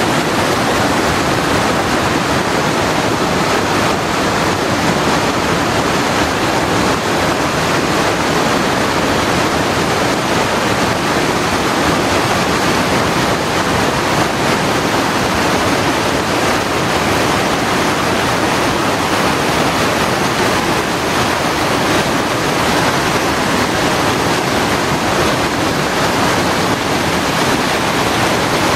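Waterfall on a creek, the falling water giving a loud, steady rushing noise with no change throughout.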